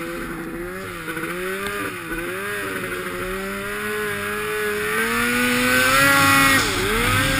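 Turbocharged Polaris RMK snowmobile's two-stroke engine running under throttle as the sled moves over snow. Its pitch wavers, then climbs and gets louder from about five seconds in, and dips briefly near the end as the throttle comes off.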